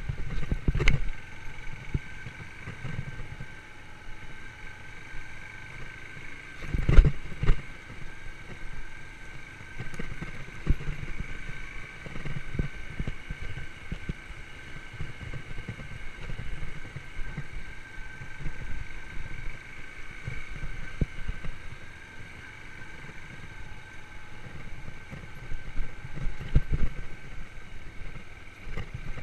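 Yamaha YBR125's single-cylinder four-stroke engine running steadily while the motorcycle rides through the forest, with low rumbling and a few sharp knocks, the loudest about a second in and about seven seconds in.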